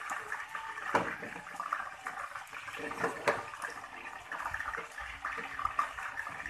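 Wooden spatula stirring pork pieces in thick coconut milk in a stainless steel pan: wet sloshing, with the spatula knocking against the pan a few times.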